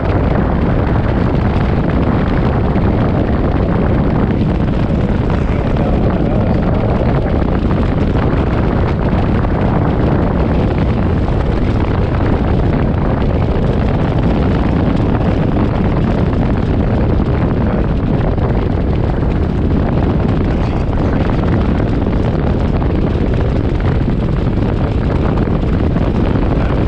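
Steady wind rush over the microphone of a camera mounted on a moving motorcycle, mixed with the motorcycle's engine and road noise.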